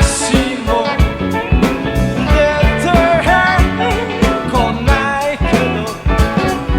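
Rock band music: drums keeping a steady beat under bass and a lead melody whose notes bend up and down in pitch.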